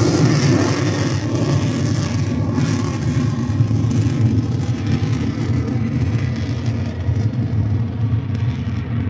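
Steady rumble of an aircraft's engines overhead, its higher hiss slowly fading as the plane draws away.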